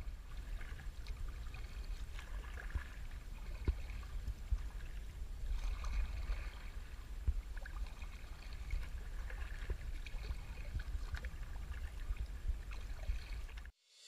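Kayak being paddled, heard from the boat itself: faint splashing and dripping of the paddle strokes and a few small knocks on the hull, over a low steady rumble. The sound cuts off suddenly just before the end.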